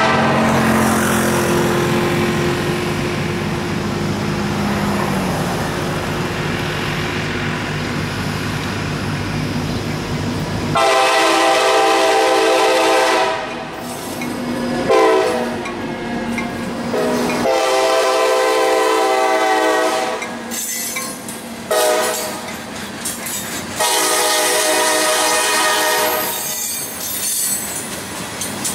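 Norfolk Southern EMD SD40-2 diesel locomotive approaching and passing, its engine droning at first. Its air horn then sounds in a series of separate blasts, long ones with a shorter one between, and another long blast near the end, while the freight cars roll by.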